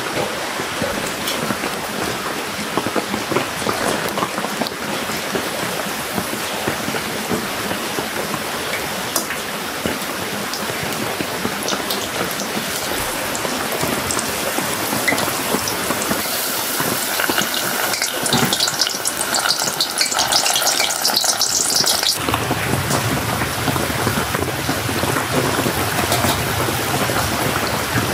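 Steady rain falling on a camping shelter. For several seconds in the middle, hot oil sizzles and crackles as food is deep-fried. About three-quarters of the way through the sound changes abruptly, and a deeper rumble joins the rain.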